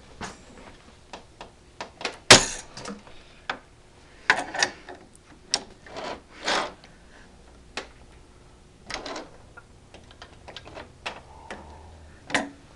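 Irregular metallic clicks and clacks from an armorer's wrench and torque wrench working an AR-15 barrel nut, as the wrench is set and pulled to tighten the nut. A few short scraping rasps come in between, and one sharp clack about two seconds in is the loudest.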